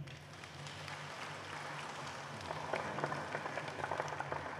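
An audience applauding at the close of a speech, the clapping growing a little stronger in the second half, over a steady low hum.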